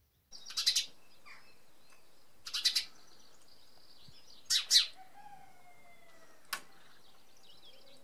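Male house sparrow chirping: three short bursts of a few quick, high cheeps each, about two seconds apart, with faint birdsong behind.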